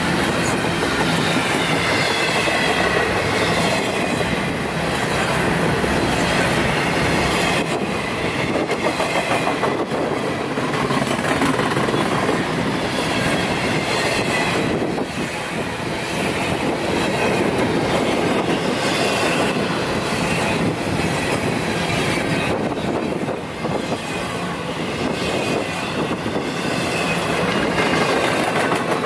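Double-stack intermodal container well cars rolling past at close range: a steady loud rumble of steel wheels running on the rails, with a high wheel squeal coming and going.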